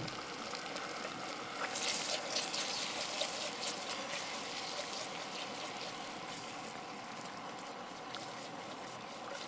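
Noodles frying in oil in a pan over a small camp stove, sizzling steadily, with a spell of louder crackling and popping about two seconds in that dies down after a couple of seconds.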